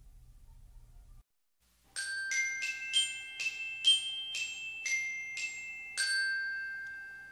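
A short chime jingle of bright, bell-like struck metal notes, about nine of them roughly two a second, each ringing on; the last note rings out and fades.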